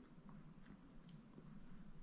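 Near silence: faint room tone with a few faint, brief clicks.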